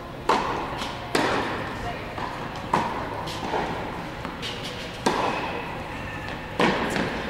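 Tennis ball struck by rackets and bouncing on the court during play: about five sharp pops at uneven intervals, each with a short echo.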